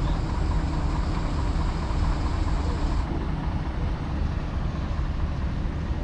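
A heavy engine running steadily at an even speed, a low rumble throughout.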